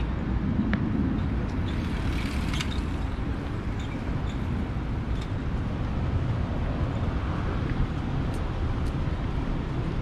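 Town street ambience: a steady low rumble of road traffic, with a few faint clicks scattered through it.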